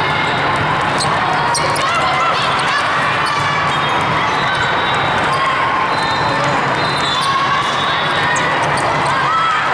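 Sound from the floor of a volleyball match in a gym: sneakers squeaking on the court and sharp hits of the ball, over steady crowd chatter.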